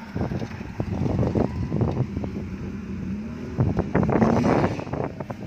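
Suzuki Jimny off-road vehicle's engine running under load over dirt, rising in pitch about three seconds in and loudest about four seconds in as it revs up the bank.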